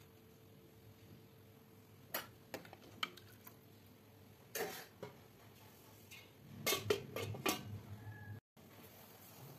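Scattered metallic clinks and taps of a stainless-steel cooking pot and lid, with a denser clatter about seven seconds in as the steel lid goes on the pot.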